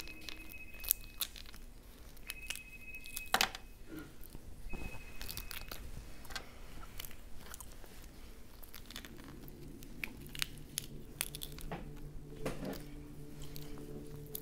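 Cooked crawfish shells cracking and tearing apart between the fingers as they are peeled, in scattered sharp cracks with the loudest about three and a half seconds in, mixed with some chewing.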